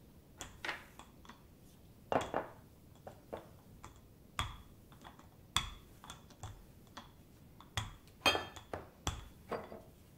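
Metal rolling pin with handles being rolled back and forth over dough on a silicone mat on a wooden board: irregular light clicks and knocks, a few every second, some with a brief ring.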